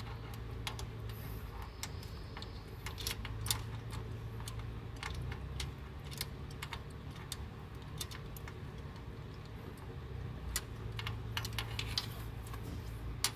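Light, irregular metal clicks of valve lifters being fitted by hand into the cylinder head of a RAM 1500's 4.7-litre V8, over a steady low hum.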